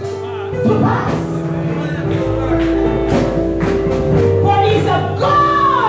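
Church music: sustained keyboard chords with a voice singing over them, ending on a long falling note near the end.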